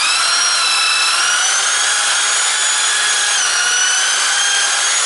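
Bosch GSB 550 corded drill running at full speed, boring a twist bit into a rotten wooden log. It gives a steady motor whine that climbs in pitch at the start as the motor comes up to speed, then holds, dipping slightly about three seconds in.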